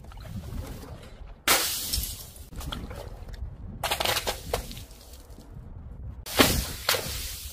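Paint-filled balls smashing on paving tiles, bursting and splattering: three loud sudden crashes with a breaking, splashing sound, about a second and a half in, around four seconds and near six and a half seconds.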